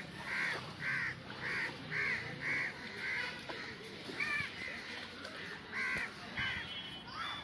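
A crow cawing: a quick run of about seven caws roughly half a second apart, then a few scattered caws later on.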